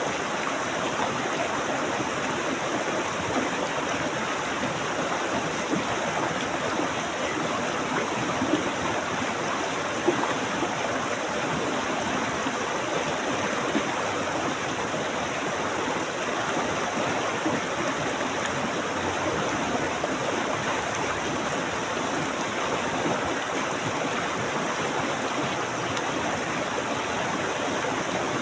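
Stream water flowing and splashing, a steady rushing with small splashes.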